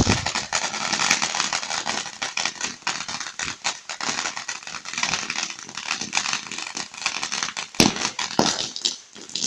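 Consumer firework crackling: a dense stream of rapid small pops, with a sharp crack at the start and two louder pops near the end.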